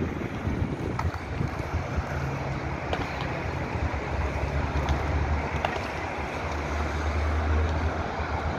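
Steady hum of city traffic from a busy multi-lane avenue, with wind buffeting the microphone as a low rumble that swells a little past the middle.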